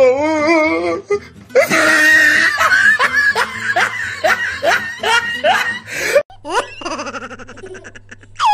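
Laughter sound effects over background music: a run of laughter, then a different, quicker giggling effect starting about six seconds in.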